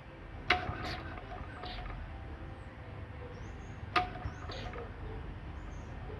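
A few sharp clinks of metal parts being handled on a stationary Wolseley WD8 engine that is not running, each with a brief ring: two close together about half a second in and another about four seconds in.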